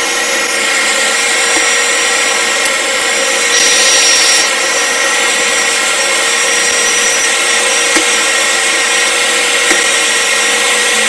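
Hot-air rework station blower running steadily at 330 degrees, heating a small chip to desolder it from a tablet motherboard: a steady rush of air over a fan hum, briefly louder about four seconds in.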